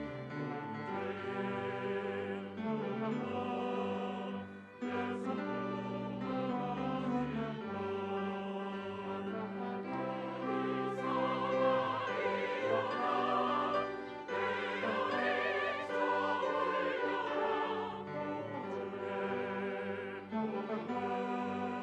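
Large church choir singing a hymn anthem in Korean, accompanied by piano and a small string ensemble.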